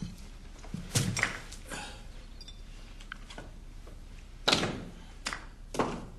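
A series of separate knocks and thuds, about six in all, the loudest about a second in and about four and a half seconds in, over a faint steady hum.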